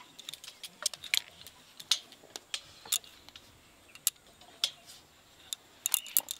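Light, irregular metallic clicks and clinks as rice-coated balls are set one by one onto a perforated stainless-steel steaming plate.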